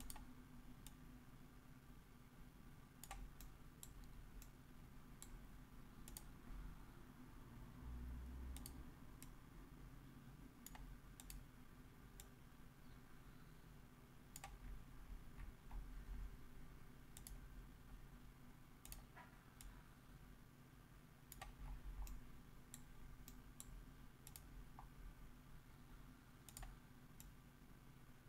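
Faint computer mouse clicks, scattered and irregular, as control points are picked and dragged on screen, over a low steady hum.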